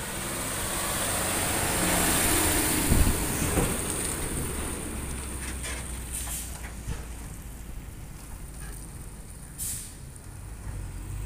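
A diesel truck hauling a container on a trailer drives past, its engine and tyres swelling to their loudest about two to three seconds in, with a couple of clunks from the rig as it goes by. The sound then fades as the truck pulls away, with a short hiss near the end.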